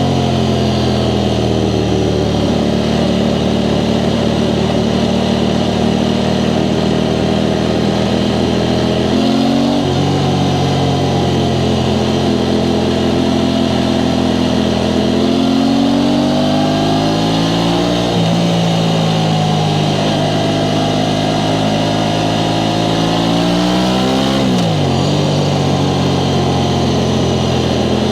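Aprilia Tuono 660 Factory's parallel-twin engine through its stock exhaust, heard from the rider's seat as the bike rides along. The engine note climbs in pitch and drops sharply three times, as at gear changes.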